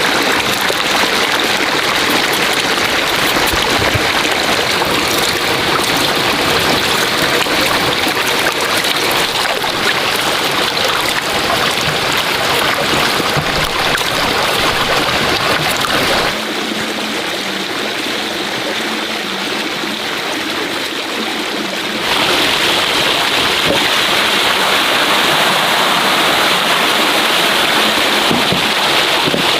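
Steady rushing of flowing water. It becomes quieter and duller for several seconds past the middle, then returns to its former level.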